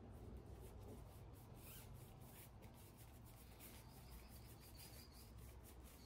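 Faint, quick, repeated rubbing strokes of a brush spreading bead grease onto the rubber bead of a motorcycle tire, over a low steady hum.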